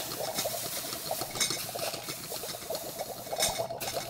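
Layered foley of a metal teapot on a stove: water bubbling and splashing onto the metal surface, with a dense run of small metal clinks and rattles.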